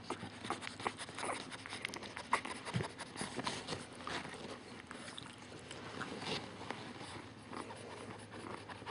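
Faint snuffling, sniffing and scattered soft clicks from a French Bulldog mother nosing her two-and-a-half-week-old brindle puppy, with rustling of the bedding beneath them.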